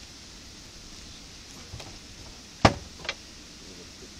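Two sharp knocks, a loud one followed by a fainter one about half a second later, over a steady rushing background.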